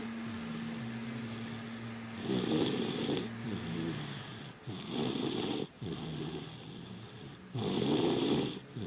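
A sleeper snoring: three loud snores about two and a half seconds apart, with quieter breathing between them.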